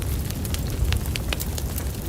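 Wood fire crackling in a fireplace: a steady low rumble of flame, with several sharp pops and snaps scattered through it.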